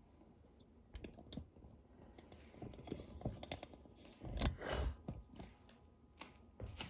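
Scattered light clicks and knocks from handling the plastic parts and controls of a Sirena water-filter vacuum cleaner, with a louder rustling knock about four and a half seconds in; the motor is not running.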